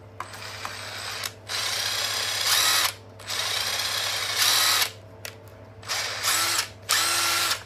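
TD132 cordless impact driver run unloaded in about six short trigger pulls, each burst one to two seconds long, its motor whine climbing in pitch as it spins up.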